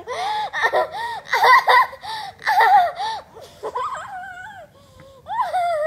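A young child's high-pitched giggling and squealing laughter in quick bursts as a puppy licks her face, easing off about three seconds in and flaring up again near the end.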